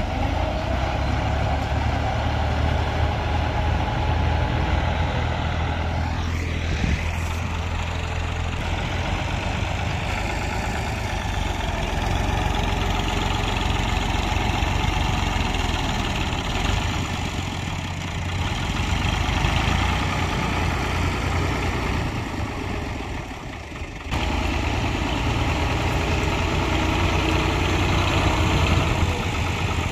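Fiat 480 tractor's three-cylinder diesel engine running steadily as it pushes earth with a front blade. Near the end the sound briefly drops away, then comes back.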